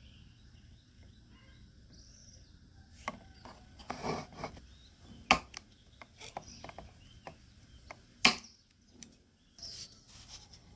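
Objects being handled on a work surface: scattered taps and rustling, with two sharp clicks about five and eight seconds in.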